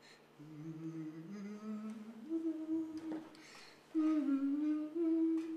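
A man humming a slow wordless tune in held notes, quietly at first, then louder from about four seconds in.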